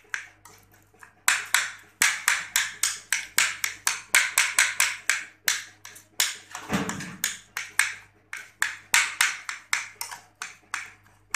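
Knife chopping soft roasted eggplant on a ceramic plate: rapid sharp taps of the blade against the plate, about four a second, with brief pauses.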